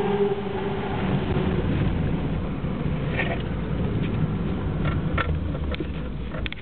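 BMW E30 323i's 2.3-litre straight-six running steadily at low revs after being revved, gradually getting a little quieter. A few light clicks come through in the second half.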